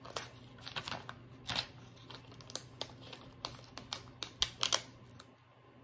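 Paper stickers being peeled from a sticker sheet and handled, giving light crinkles and small irregular clicks over a low steady hum.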